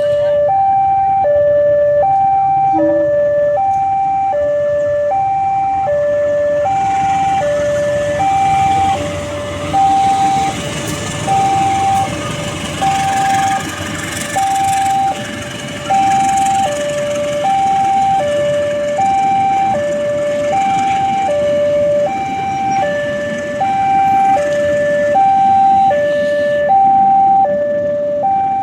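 Two-tone hi-lo siren sounding, alternating evenly between a high and a low note about once a second. A broad rushing noise joins about seven seconds in and drops away near the end.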